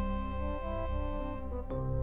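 Background music of slow, held chords; the chord changes near the end.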